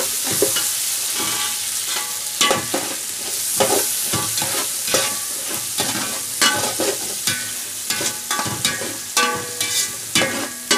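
Ginger, onion and garlic sizzling in hot oil in a metal pot as they are sautéed. A metal spoon stirs them, scraping and clinking against the pot many times at an uneven pace, the pot ringing briefly after some strokes.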